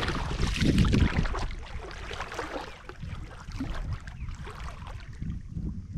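Shallow seawater sloshing and lapping around a camera held at the water's surface, busier for the first couple of seconds and then calmer.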